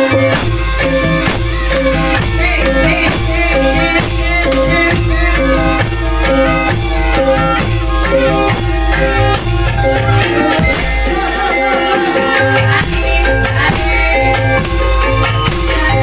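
Banyumasan Javanese gamelan music (gending) for an ebeg hobby-horse dance: layered pitched tones over a steady drum beat.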